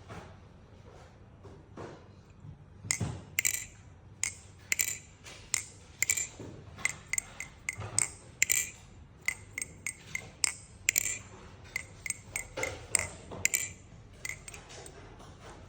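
Baliplus Kraken V3 clone balisong (butterfly knife) with double-slot speed-channel handles being flipped: its metal handles and blade click and clink in quick irregular runs, each strike ringing brightly like wind chimes. The clinking starts about three seconds in and stops near the end.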